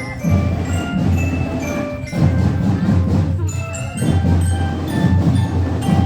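A school marching drum band playing: a marching glockenspiel (bell lyra) picks out a melody in short ringing notes over steadily pounding drums.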